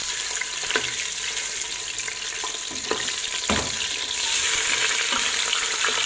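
Chicken leg quarters sizzling as they fry in hot oil and smen in an aluminium pot while the pieces are laid in. A few knocks come from the pot, the loudest about three and a half seconds in, and the sizzling grows a little louder after about four seconds.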